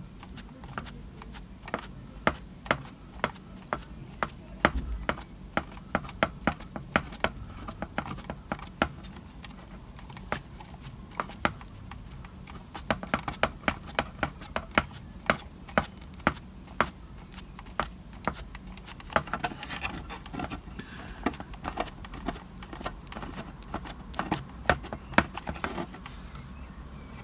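Paint-loaded sponge dabbed repeatedly against a Mylar stencil on a model building's embossed brick wall: a run of light, irregular taps, several a second, with a short lull partway through.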